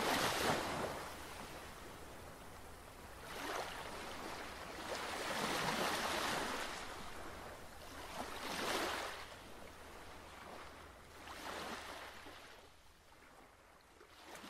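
Ocean waves washing in, a rushing hiss that swells and falls about every three seconds and fades out near the end.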